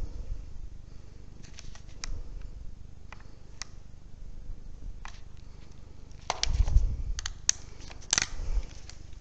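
Close handling noise: scattered sharp clicks and taps as hands work a small electronic device, with two heavier rubbing bumps against the microphone about six and a half and eight seconds in.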